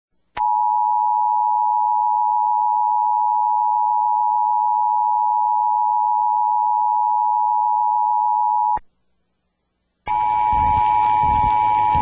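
Emergency Alert System attention signal, the steady two-tone alert of 853 and 960 Hz, held for about eight seconds. It cuts off, and after about a second of silence it starts again with AM radio static and noise behind it, as received off the air.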